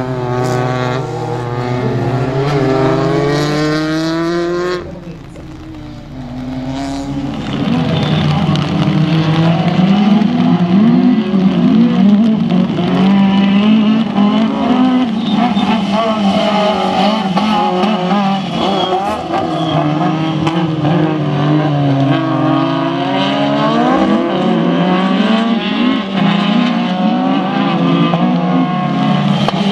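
Rallycross race car engines revving hard and rising and falling in pitch through gear changes and corners. The sound drops away abruptly about five seconds in, then builds back with several cars' engines running together.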